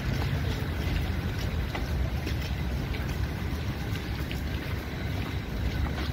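Wind buffeting a handheld microphone as a steady low rumble, over the general noise of a busy street, with faint scattered clicks.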